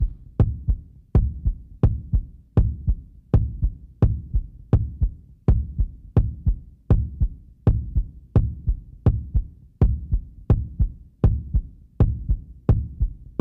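A heartbeat sound effect: a steady pulse of low thumps, each with a sharp click on top, about 80 beats a minute.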